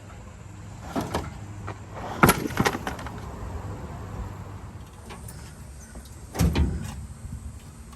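A few sharp knocks and bangs over a low steady rumble; the loudest comes a little over two seconds in, followed by another half a second later, and a further pair about six and a half seconds in.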